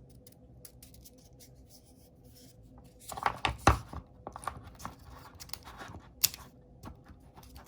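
Hands handling a new camera and its plastic packaging: clicks, scrapes and crinkling that start about three seconds in, after a quiet stretch with only a faint steady hum.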